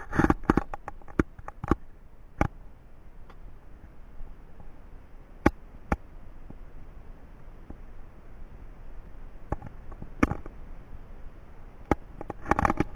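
A dozen or so sharp, scattered knocks and clicks, several close together near the start and again near the end, with single ones in between, over a low steady hiss.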